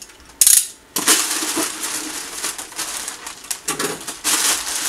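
Packing paper rustling and crumpling as it is handled and pulled out of a cardboard box, with a short, sharp, loud noise about half a second in.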